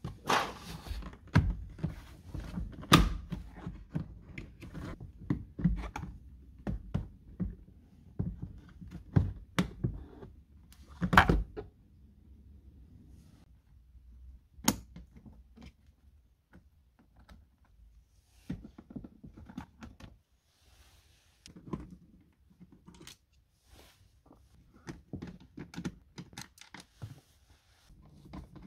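Hard plastic knocks and clunks as a car's glovebox is worked out of the dashboard, a dense run for about twelve seconds with the loudest knocks about three and eleven seconds in. Then come sparser clicks and small scrapes as a screwdriver undoes Torx screws in the plastic trim behind it.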